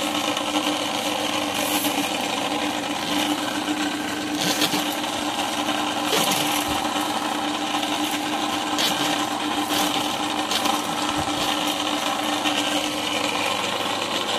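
Ridgid K-1500 sectional drain-cleaning machine running steadily, its motor spinning the cable down the sewer drain to free a jetter hose jammed in the pipe. It makes an even mechanical whirr over a constant hum.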